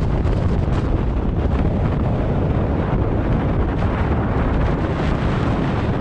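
Steady rumble of road and wind noise inside a moving car.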